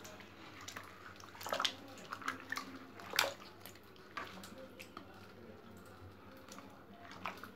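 Water splashing and sloshing as a hand stirs and turns over wet fish in a basin, with a few irregular sharp splashes, the loudest about three seconds in.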